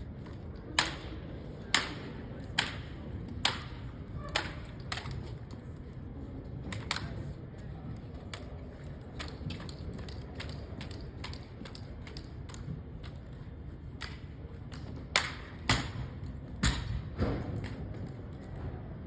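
Sharp knocks and taps from drill movements on a hard floor: five about a second apart at the start, scattered ones after that, and a loud cluster near the end, over a steady low background hum.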